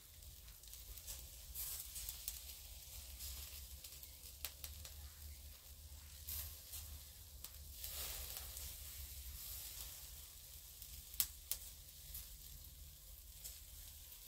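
Pork souvlaki skewers sizzling faintly on a charcoal grill, with scattered small crackles and a couple of sharper clicks about eleven seconds in.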